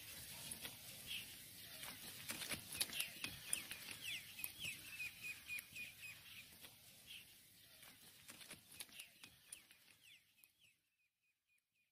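Small birds chirping over and over in short, slightly falling notes, with scattered sharp clicks; the background drops away abruptly about a second before the end, leaving a few faint chirps.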